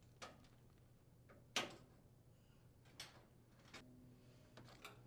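A few quiet, scattered clicks and snaps of plastic coil retainers and parts being handled with needle-nose pliers, one sharper click about a second and a half in, over a faint low hum.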